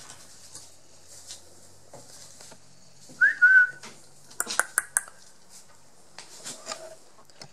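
A three-week-old Border Collie puppy gives a short, high squeal about three seconds in, rising then held for about half a second. A second later comes a quick run of four or five sharp yelps. Faint scuffling runs throughout as the puppies play-fight.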